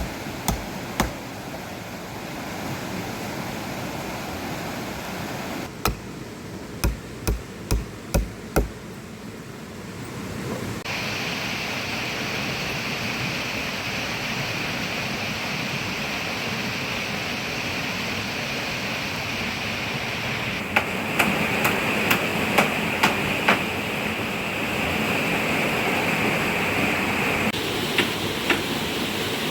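Steady rushing water, changing abruptly a few times, with several quick series of sharp knocks from hammering during building work.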